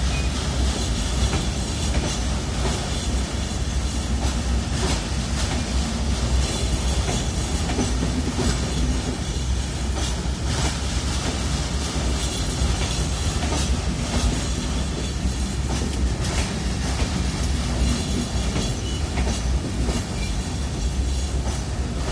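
Passenger train coaches rolling past at slow speed, their wheels clacking over rail joints in an irregular run of clicks over a steady rumble.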